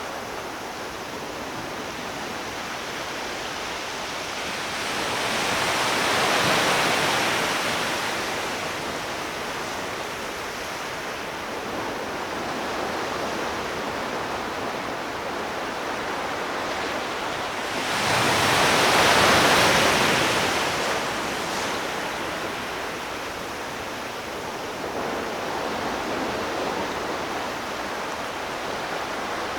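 Ocean surf: a steady wash of sea waves, with two larger waves swelling and breaking, one a few seconds in and a louder one rising suddenly past the middle and fading over about three seconds.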